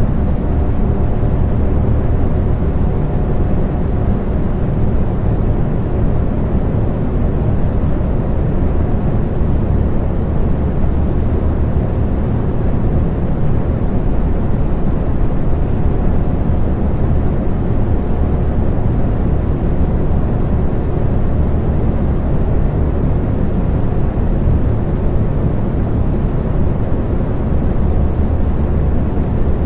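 Electric fan running steadily: a continuous low whooshing hum of moving air, with a faint motor tone above it.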